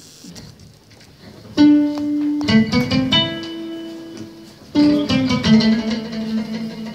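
Ngoni, the West African plucked lute, being played: after a quiet second and a half, single plucked notes start, each one ringing on, building into a short phrase.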